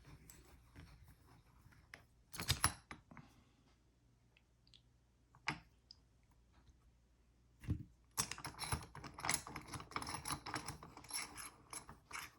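Workbench handling noises as a lock cylinder is set into a bench vise: a few separate metal knocks, then from about eight seconds in a dense run of rapid clicking and rattling as the vise is worked.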